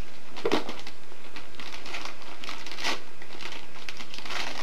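Wrapping paper crinkling and rustling in several short crumples as a present is unwrapped, the loudest about three seconds in.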